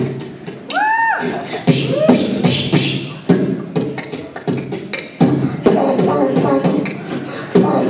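A child beatboxing into a handheld microphone: a fast run of mouth-made drum hits, with a couple of rising-then-falling whistle-like glides about a second in.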